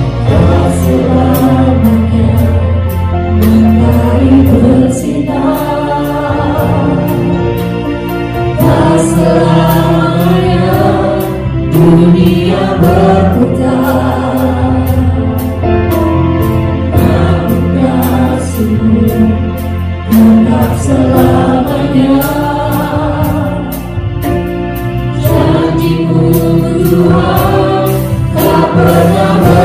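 Live worship band playing a gospel song: a group of singers over keyboard, bass guitar, electric guitar and drum kit, with a steady drum beat and cymbal hits.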